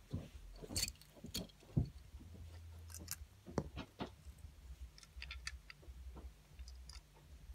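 Light clicks and knocks of small toy train engines being handled, picked up and set down against one another, scattered irregularly over a faint low hum.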